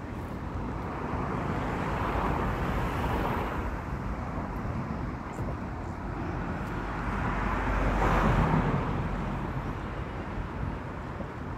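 Road traffic: cars passing close by, one swelling up and fading about two to three seconds in and a louder one about eight seconds in, over a steady background rush.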